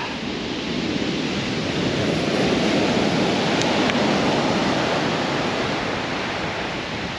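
Sea surf breaking and washing up a shingle beach, a noisy rush that builds over the first few seconds and then slowly eases off.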